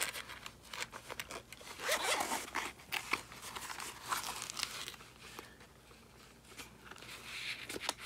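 Zipper of a small semi-hard microphone case being drawn open around the case in a run of short raspy strokes, thinning out to quieter handling and a few clicks as the case is opened.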